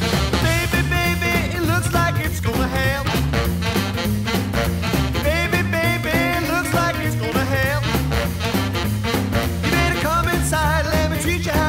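Swing-style background music with a steady beat and a wavering melody line.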